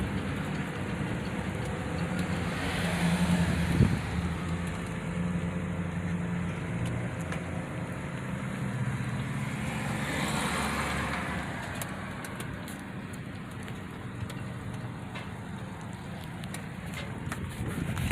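Car engine and road noise, steady and low, with two longer swells of rushing noise about three and ten seconds in and a single knock near four seconds.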